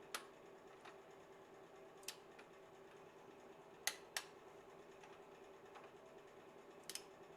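Faint, scattered clicks and taps of hand tools on metal engine parts, about six over several seconds, over a steady faint hum.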